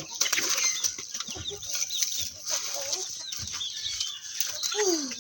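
Free-ranging hens clucking, with many short overlapping calls from the flock.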